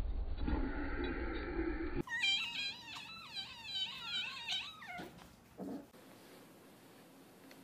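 A kitten meowing: a quick run of high, wavering cries lasting about three seconds, starting about two seconds in.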